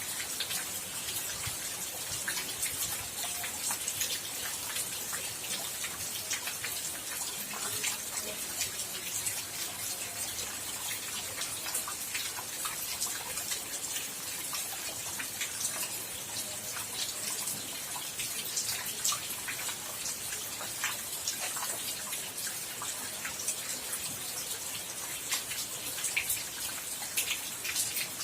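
Steady rain falling, with many separate drops striking close by as sharp little ticks over an even hiss.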